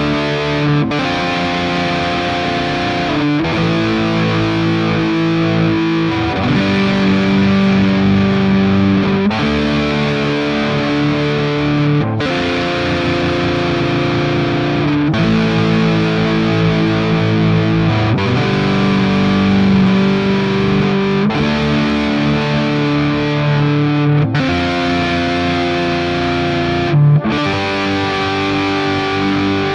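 Distorted electric guitar with a flanger effect playing a series of sustained chords, a new chord struck about every three seconds.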